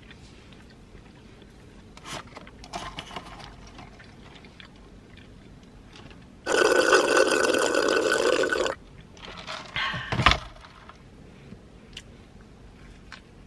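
A drink sucked up through a plastic straw from a paper fountain-drink cup: one loud slurp lasting about two seconds, midway through. A short thump follows about a second and a half later.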